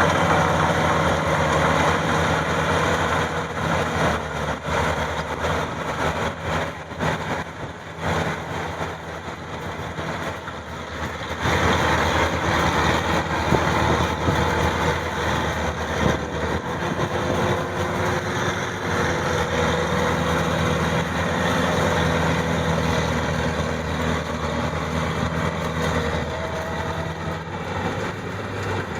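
Maxxi 85 combine harvester's engine and machinery running steadily, dipping for a stretch and growing louder again about eleven seconds in.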